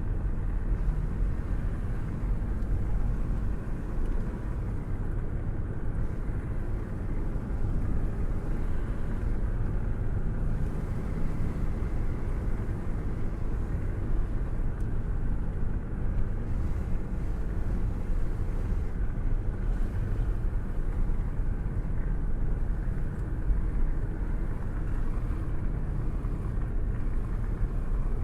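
A car cruising at steady speed, heard through an open window with a hand held out: a steady low rumble of wind and road noise with small swells in loudness.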